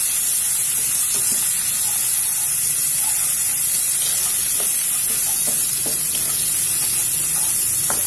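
Ground spice paste with bay leaves, galangal, kaffir lime leaves and ginger sizzling steadily as it is stir-fried in a wok, with a few light clicks from the stirring.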